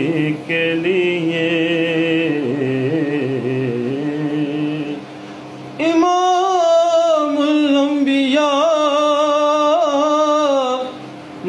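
A man singing Urdu devotional verse with no words in this stretch, holding long, ornamented notes: a lower wavering phrase, a short break about five seconds in, then a higher, louder held phrase.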